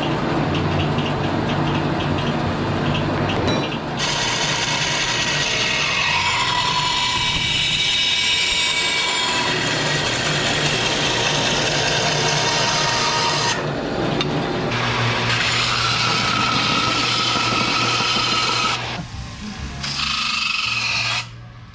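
Shop power tools working aluminium in quick succession: a vertical bandsaw cutting an aluminium channel, then a bench grinder's wire wheel brushing the cut edge. The sound changes abruptly several times, with steady whining tones through the middle stretches.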